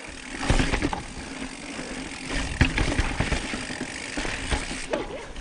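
Mountain bike rolling over sandstone slickrock: a steady tyre rumble with a few sharp knocks and rattles from the bike as it hits the rock.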